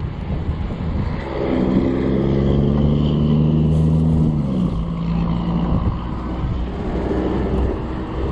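Wind noise on the microphone of a moving e-bike. A passing motor vehicle's engine comes up about a second in and drops in pitch as it goes by, at about four and a half seconds.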